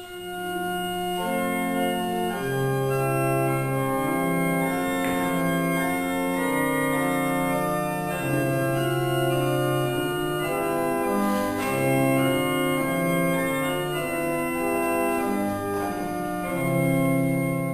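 Organ music: slow chords of several notes held together, changing about every second, fading in at the start.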